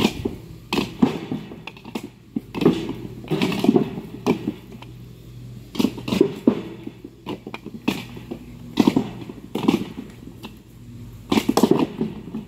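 Husked coconuts knocking and clattering against one another as they are picked up by hand and tossed from a heap. The knocks come irregularly, singly and in quick clusters.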